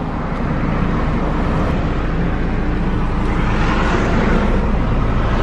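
A stationary van's engine idling, heard from inside the cabin, under steady roadway traffic noise. The traffic noise swells as a vehicle passes about four seconds in.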